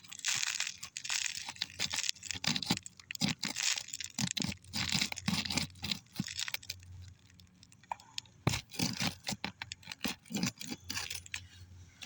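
Roof snake prying under brittle asphalt shingles: irregular crackling, tearing and scraping as the sealant strip is broken loose and the metal tool rubs on the gritty shingle.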